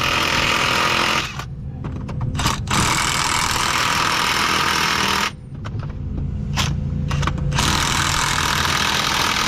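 Impact wrench hammering in three long runs with short blips between them, driving bolts. A machine engine runs steadily underneath.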